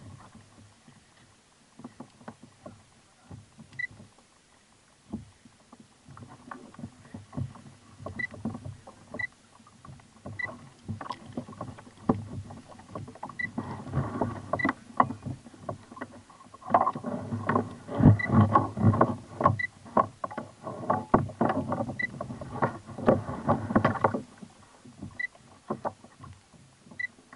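Irregular knocks and bumps as a large corvina is handled aboard a plastic kayak, busiest and loudest through the middle stretch. A faint short high beep repeats every second or two.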